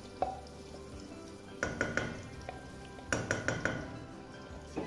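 A utensil clinking against an aluminium cooking pot while the last of the marinade is scraped out of a plastic bowl into it. There are sharp, ringing clinks: one near the start, three about one and a half seconds in, and a quick run of four or five about three seconds in. Under them is a faint sizzle of the chicken frying in oil.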